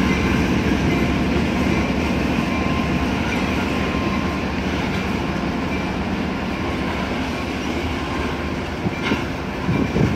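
Freight cars (covered hoppers and tank cars) rolling past on steel rails: a steady rumble of wheels with thin squealing tones above it. A sharp click of wheels over a rail joint comes about nine seconds in, and the rumble gets rougher and louder near the end.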